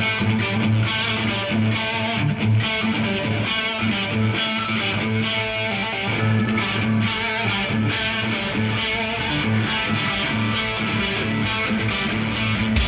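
Live hard rock band music: electric guitar over bass guitar and drums, with no singing.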